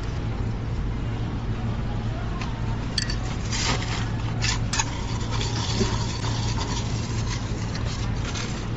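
A scoop scraping and crunching through crushed ice in a cooler, with a few sharp clinks, a few seconds in. A steady low hum runs underneath.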